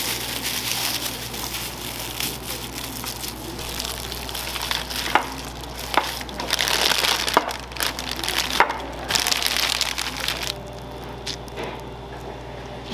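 Thin plastic bag of buttercream crinkling and rustling as gloved hands twist it and push it into a piping bag, with a few sharp clicks along the way. The rustling dies down near the end.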